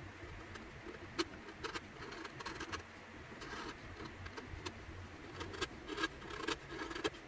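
Hand-tool work on a wooden dovetail joint: irregular light knocks and short scraping strokes, with a few sharper clicks, of a chisel and the workpiece being handled and pared.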